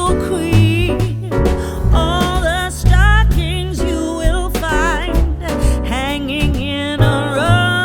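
Background music: a song with a sung vocal line over bass and a steady beat.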